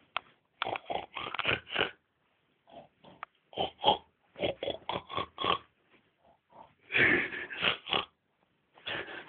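A person snoring in five runs of quick, rattling snorts with short pauses between, the runs falling into phrases like a tune being sung.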